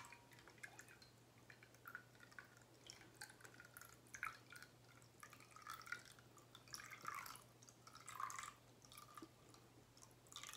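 Faint, irregular wet dripping and squishing as borax solution is poured into a glue mixture and stirred with a spatula, the mixture starting to set into slime.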